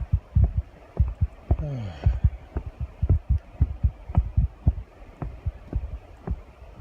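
Footsteps on a bridge deck: a steady walking rhythm of dull, low thuds, about three a second.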